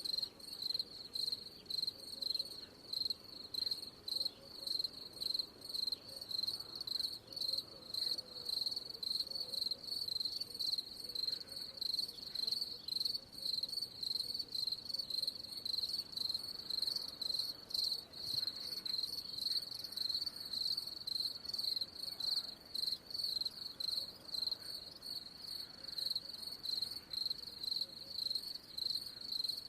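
Cricket chirping steadily: short high-pitched chirps repeating evenly, about two a second.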